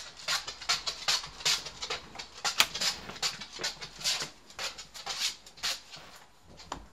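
English bulldog panting heavily: a quick run of short rasping breaths, about four a second, dying down near the end.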